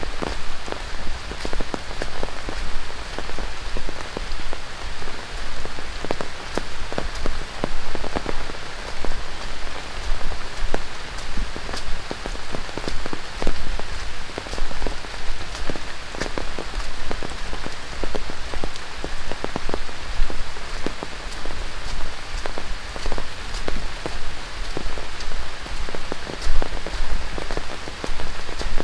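Heavy tropical rain falling steadily on dense rainforest foliage, with many close, sharp drop hits through the constant hiss.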